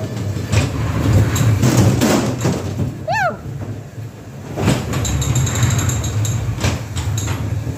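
Ghost train dark-ride car rumbling along its track, with sharp knocks and bangs. About three seconds in comes a short high wail that rises and falls. A little later a high steady electronic tone sounds for about a second and a half.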